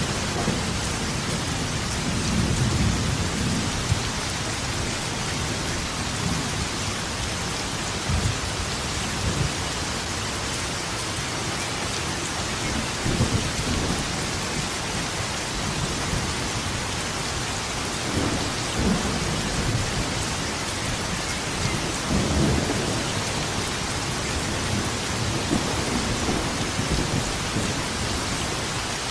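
Steady heavy rain, with rolls of thunder rumbling in and out every few seconds.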